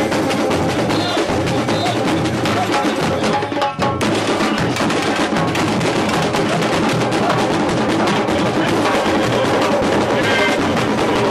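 A samba school bateria playing a fast samba rhythm: surdo bass drums pulsing under a dense, rapid stream of hand-drum strokes. The beat dips for an instant just before four seconds in.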